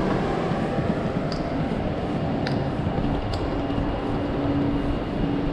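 Busy city-street traffic noise, steady throughout, with a low engine hum from a vehicle that comes in about halfway through.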